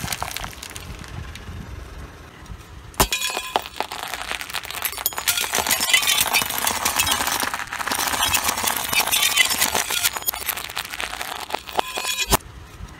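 A car tyre rolling over and crushing things: a softer crunch of candy-coated chocolates at first, then about three seconds in a sharp crack and a long run of dense crackling, clinking and breaking as the tyre crushes a coloured light tube. The crackling stops suddenly near the end.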